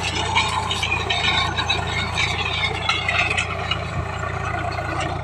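Engine running steadily, a low hum with rattling over it.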